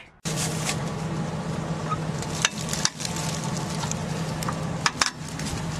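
A steady low mechanical hum with a few sharp metallic clicks while a trailer is being raised on a jack.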